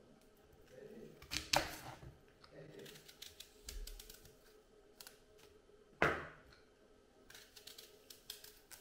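Scattered light clicks and taps, with two sharper knocks about one and a half seconds in and about six seconds in.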